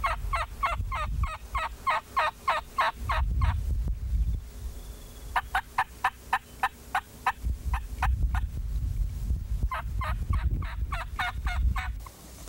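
Turkey box call yelping in three long runs of short, evenly spaced notes, about four to five a second, with brief pauses between the runs: hen-turkey yelps to pull a gobbler in close. A low rumble sits under the calling.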